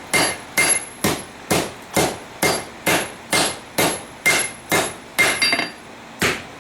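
Three-pound hand hammer striking a steel forge-welding canister on the anvil, a steady run of blows about two a second, each with a short metallic ring. The blows pause briefly near the end.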